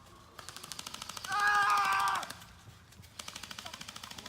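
Airsoft guns firing rapid full-auto bursts, a fast even rattle of shots that pauses briefly near the end and starts again. A loud steady tone sounds for about a second in the middle of the firing.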